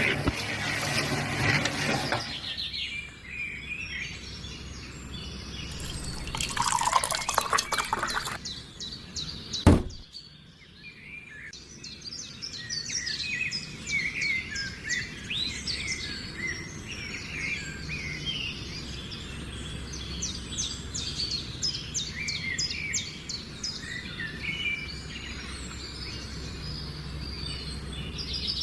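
Birds chirping over a low steady hum, with a louder noisy stretch in the first couple of seconds and a sharp knock about ten seconds in.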